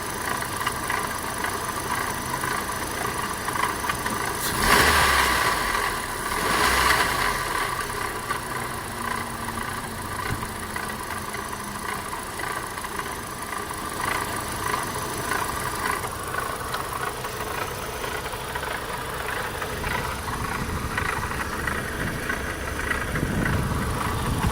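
Opel Astra's 1.6 16V X16XEL four-cylinder engine running with a rattling noise, with two brief louder swells about five and seven seconds in.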